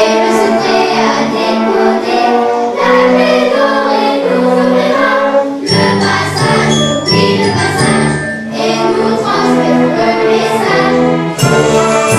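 Children's choir singing with instrumental accompaniment. About halfway through, a bass line and high bell-like tinkles come in.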